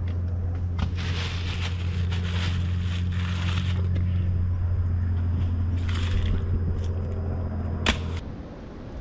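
Dry leaves and a plastic bag rustling and crackling as they are handled, in several bursts, over a steady low hum. A sharp click comes near the end, just before the hum stops.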